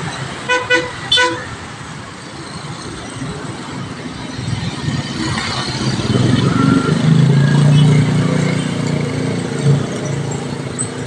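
Heavy street traffic of motorbikes and minibuses with engines running. A horn gives two short toots about half a second and a second in. Engine noise grows louder from about six to nine seconds in as vehicles pass close by.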